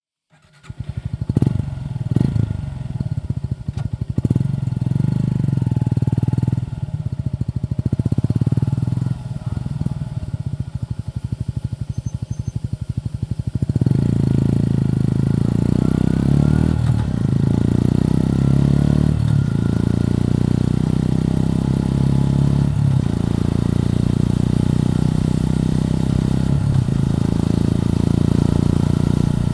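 Suzuki Gixxer 150's single-cylinder four-stroke engine running with an even, quick pulse. About 14 seconds in it turns louder and fuller as the motorcycle gets under way, with a few brief dips in level.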